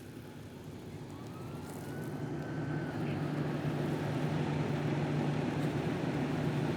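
A large vehicle engine running steadily, growing louder over the first few seconds and then holding. A faint, thin rising tone, like a distant siren or whistle, sounds briefly about a second in.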